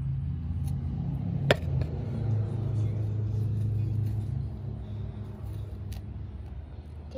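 A low engine rumble, as of a motor vehicle nearby, swelling and then fading away, with a sharp click about a second and a half in.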